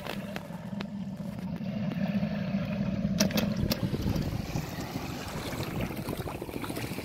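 Wind buffeting the microphone over a steady low engine drone, with a few sharp clicks about three seconds in.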